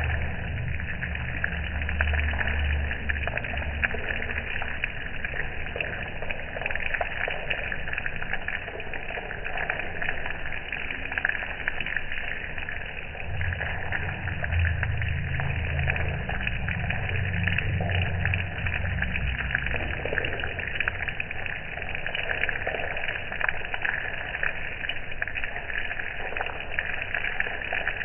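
Steady patter of rain on a wet flat roof, with a low rumble that comes and goes near the start and again around the middle.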